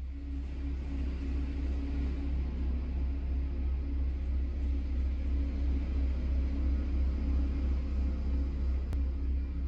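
A deep, steady droning rumble with faint wavering tones above it.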